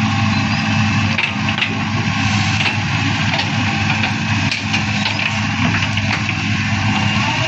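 Heavy machine's engine running steadily, with scattered light knocks and clatter over it.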